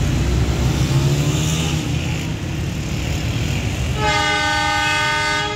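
Pakistan Railways GMCU-15 diesel locomotive sounding its multi-tone air horn once, held for about a second and a half starting about four seconds in, over a steady low rumble of the engine and road traffic.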